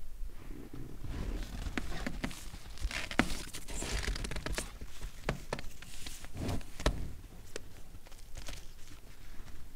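European bison moving in snow right beside the camera: hooves crunching and stepping, with irregular knocks and thumps close to the microphone.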